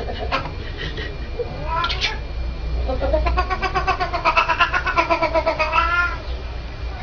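Cat yowling: a few short calls, a rising call about two seconds in, then one long wavering yowl of about three seconds.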